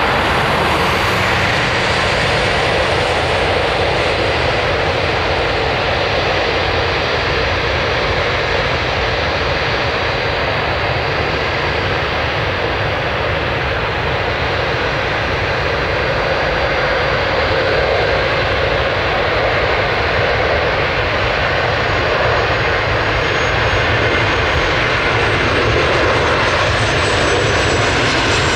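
Cessna Citation X's twin Rolls-Royce AE 3007C turbofan engines on final approach with the landing gear down: a steady loud jet roar. Near the end a high turbine whine joins in and slowly falls in pitch as the jet draws close.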